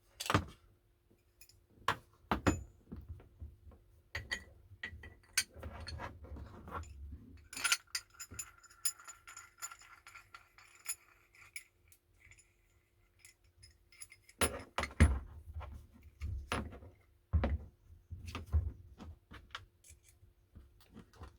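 Small cast bench vise's metal parts being handled during its light oiling: scattered clinks, knocks and thunks, some with a brief metallic ring. The heaviest knocks come about two-thirds of the way through.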